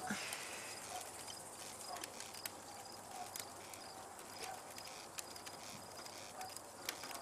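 Crickets chirping faintly, short high chirps repeating about twice a second, with a few soft clicks.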